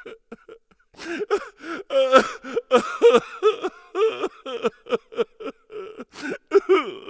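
A person's voice making a quick run of short groan- and gasp-like sounds, each rising and falling in pitch.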